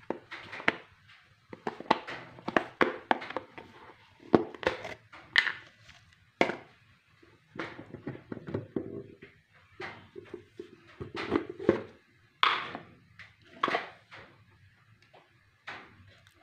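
Irregular knocks, clicks and clatter of kitchen pans and utensils being handled around an induction cooktop, about a dozen separate hits of varying loudness.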